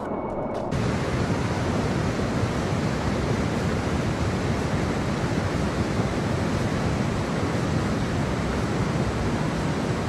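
Steady rush of a spring-fed mountain creek tumbling over a small waterfall, getting louder and fuller about a second in.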